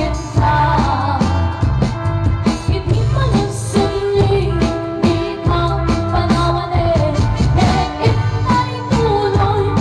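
Live band playing an Ilocano waltz (balse) through a PA, with two women singing the melody over a steady beat and bass.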